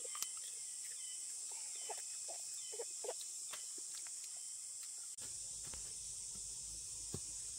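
A steady, high-pitched drone of field insects, with a few short clicks and brief chirps over it in the first few seconds. About five seconds in, a low rumble starts suddenly underneath.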